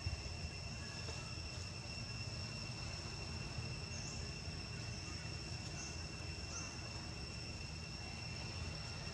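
Outdoor ambience: a steady, high-pitched insect drone holding one pitch, over a low rumble, with a few faint short chirps around the middle.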